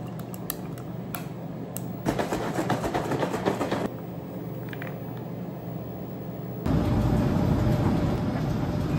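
Frothed matcha poured from a milk-frother jug over ice in a glass, with the ice clicking and then crackling densely as the liquid runs in. About two-thirds of the way through, a louder steady low rumble takes over.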